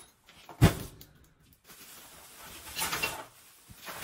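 A cardboard box of VHS tapes thumps down once on a concrete floor, followed by the crinkling rustle of a black plastic trash bag being handled.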